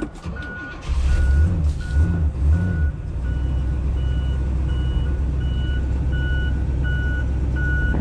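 Pontiac GTO V8 just started cold, revving unevenly for about two seconds a second in, then settling into a steady idle. Over it a vehicle's reversing alarm beeps evenly about one and a half times a second, louder near the end.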